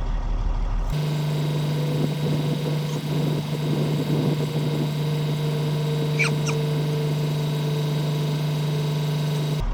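Semi truck's diesel engine idling steadily, with some irregular knocks and rattles about two to four seconds in.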